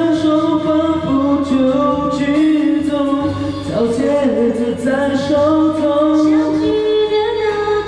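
A Mandarin pop ballad sung by several voices in harmony, with steady low notes held underneath.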